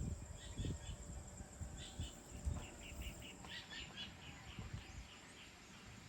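A bird chirping in short groups of quick, high notes, including a rapid run of chirps about halfway through, over a steady high insect drone. A few low rumbles sound in the first second.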